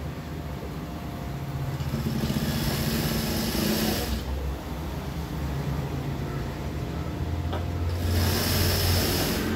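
Sewing machine stitching a seam, with a steady motor hum and two faster, louder runs of stitching, about two seconds in and again near the end.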